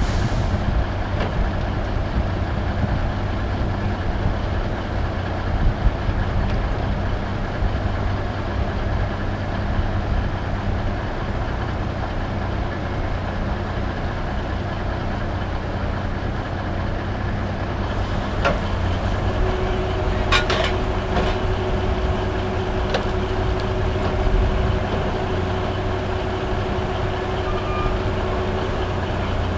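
Diesel engines of a Cat log loader and a Kenworth log truck running steadily as the loader sets a big log onto the truck's bunks. A few sharp knocks come a little past halfway, and a steady whine joins in about two-thirds through.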